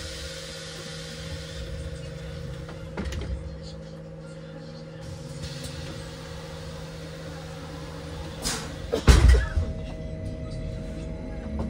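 Inside a Bogdan T70117 trolleybus standing with its doors open: the onboard electrical equipment gives a steady hum, with a hiss in the first few seconds. About nine seconds in there is a loud cluster of knocks and thumps as the folding doors close.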